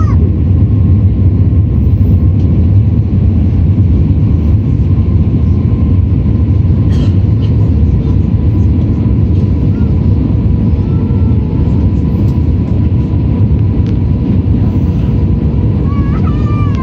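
Steady cabin noise inside an Airbus A321 in flight on approach: a loud, even low rumble of the jet engines and airflow, with a faint steady high tone over it. Muffled cabin voices come in near the end.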